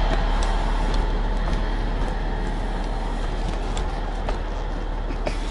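A heavy vehicle engine running steadily under a constant rushing hiss, with a few faint clicks.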